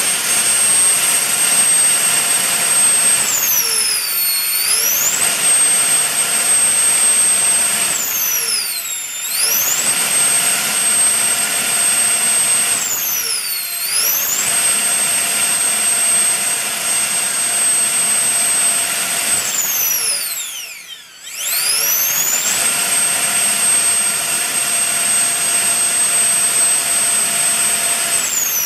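JP (Jingpin Hobby) 90mm all-metal CNC electric ducted fan on a 12S battery, run at full throttle on a thrust stand with a high steady whine. The throttle is eased back and brought up again three times in the first half, backed off almost to a stop and run up again about two-thirds through, and the fan spools down at the very end.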